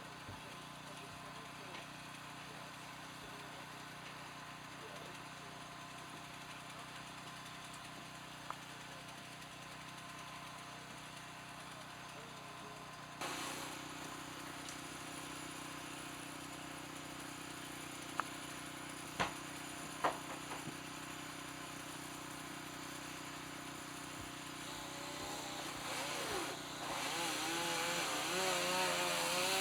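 Steady machinery hum that grows louder about halfway through, with a few sharp knocks and wavering tones building toward the end.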